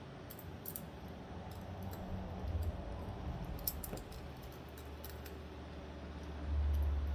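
Small sharp clicks and taps of metal pocketknife parts and tools being handled during reassembly, scattered irregularly, with a low rumble rising near the end.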